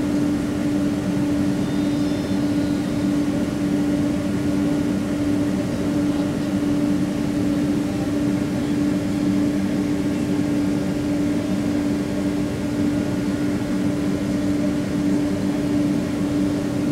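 Boeing 767 jet engines heard from inside the cabin while the aircraft taxis at low power: a steady drone with a strong hum over a rumble, never rising.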